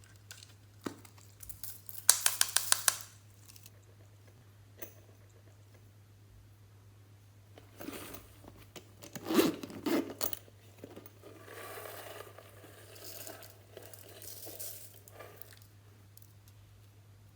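Hands working glossy slime and the things being mixed into it. About two seconds in comes a quick run of crackling clicks. Around eight to ten seconds there is louder crinkling and squishing, then softer rustling.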